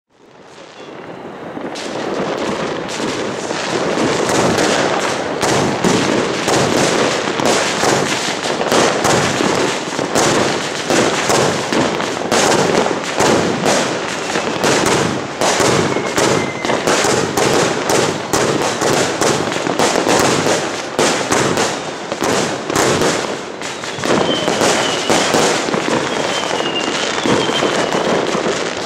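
A 25-shot, 370-gram consumer fireworks cake firing shot after shot, its reports coming in a dense, rapid string.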